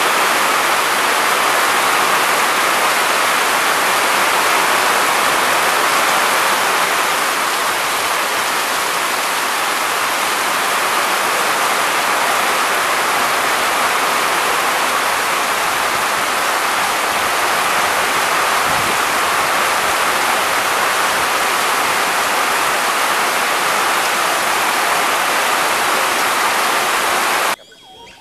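Loud, steady rushing hiss with no pitch or rhythm, cutting off abruptly near the end.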